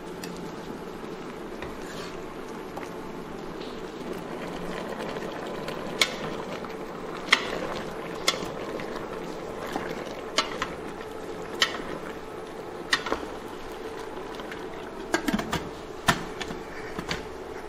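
Braised pork and radish simmering in a stainless steel pressure cooker, a steady bubbling hiss, with sharp knocks of a wooden spatula and radish chunks against the metal pot as it is stirred. Near the end a cluster of metallic clanks as the pressure cooker lid is set on.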